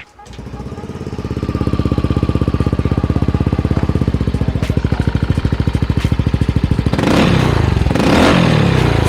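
Yamaha NMAX's single-cylinder four-stroke engine running at idle through a newly fitted VMAX Orion performance exhaust, an even, rapid pulse that builds up over the first couple of seconds. About seven seconds in, the sound turns louder and rougher.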